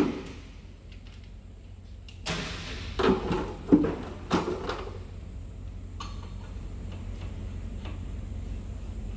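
A handful of heavy clunks and knocks, starting with a short hiss about two seconds in, from metal truck brake parts and tools being handled during a brake and drum job. A steady low hum runs underneath.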